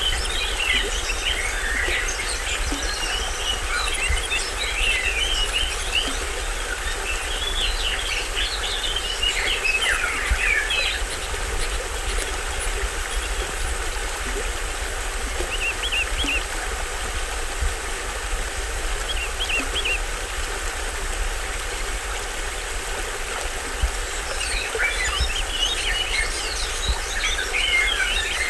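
Small stream waterfall running steadily, with tropical forest birds chattering over it in bursts: at the start, about a third of the way in and again near the end, with a couple of short calls in the middle.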